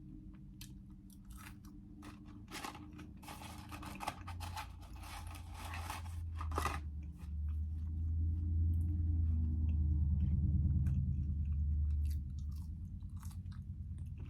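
Close-miked chewing and crunching of fried fast food, with crisp bites during the first half. A low steady drone swells under the chewing through the middle and is the loudest sound for several seconds.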